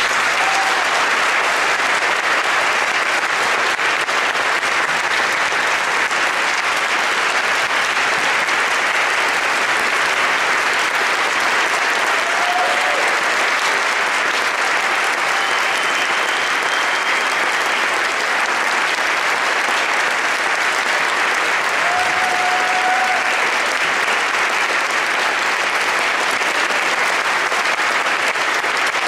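Loud, steady applause from a church audience and robed choir, with a few short cheers rising over the clapping.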